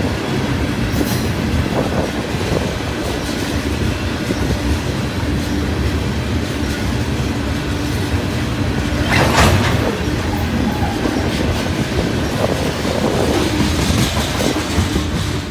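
CSX freight train's open-top hopper cars rolling past close by: a steady rumble and clatter of steel wheels on the rails, with a brief louder burst about nine seconds in.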